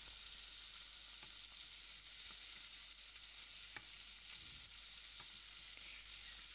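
Fish pieces and a fish head sizzling steadily as they fry in hot oil in a karai, with a few light taps and scrapes of a wooden spatula as they are turned over.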